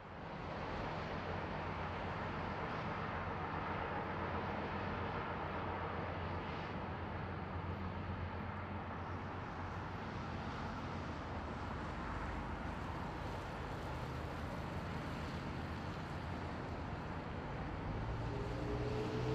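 A heavy freight train's lead GE diesel locomotives working hard, heard from a distance as a steady low engine rumble. A cluster of higher tones comes in near the end.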